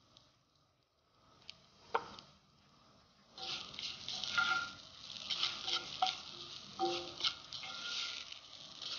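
Quiet at first with a single sharp knock about two seconds in, then from about three seconds in a wooden spatula stirring and scraping masala-stuffed okra in an oiled cast-iron skillet, with sizzling and repeated clicks of the spatula on the pan.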